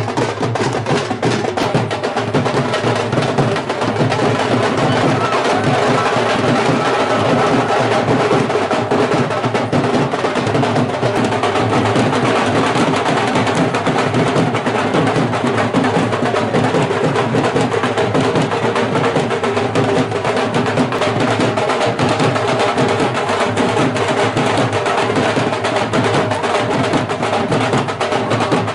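Live wedding band music, loud and unbroken: carried drums beating a dense, fast rhythm, with steady held notes of a melody over them.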